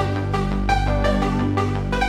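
Electronic background music with a steady beat and sustained bass notes.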